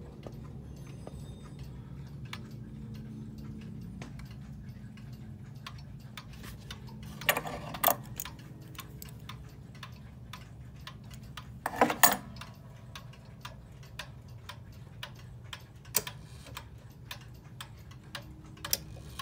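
Antique Girod wall clock's movement ticking steadily. A few louder handling knocks come about seven to eight seconds in and again around twelve seconds.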